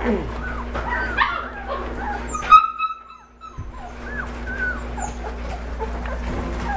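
A litter of young Shepadoodle puppies whimpering and squeaking, many short overlapping whines rising and falling in pitch. One loud sharp yelp stands out about two and a half seconds in, followed by a brief lull.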